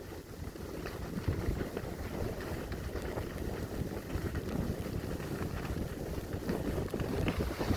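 Rushing wind buffeting a skier's camera microphone during a run through powder snow, with a steady low rumbling hiss.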